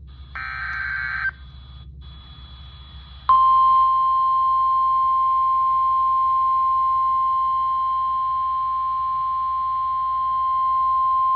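NOAA Weather Radio alert over a receiver's speaker: a one-second burst of screechy SAME header data, then about two seconds later the steady 1050 Hz warning alarm tone, a single loud unbroken pitch that starts about three seconds in and holds on. The tone signals that a new severe weather warning is about to be read.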